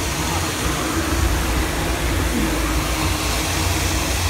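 Confetti cannon jetting a continuous stream of confetti into the air: a steady rushing noise over a low hum.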